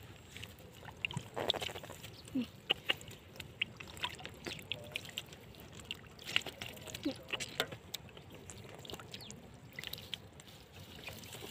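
Water splashing and dripping: scattered small splashes and sharp clicks, irregular throughout.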